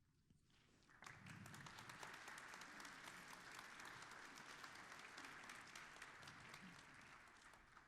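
Congregation applauding, faint: many hands clapping together, starting about a second in and tapering off near the end.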